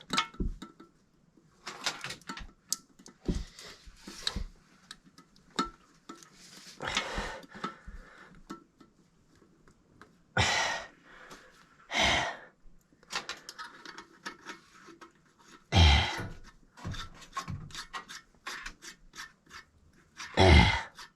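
A person breathing hard and grunting with effort in loud irregular bursts, with scraping and small clicks from handling parts and tools between them.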